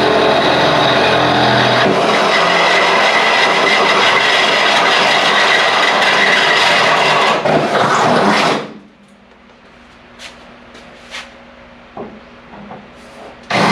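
Power drill running under load as its bit bores a pilot hole through the car's hood, steady for about eight seconds before it stops. A few light clicks follow, and the drill starts up again near the end.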